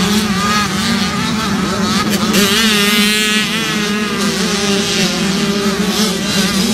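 Motocross bike engines running: a steady low drone, with a higher engine note wavering up and down about two to three seconds in.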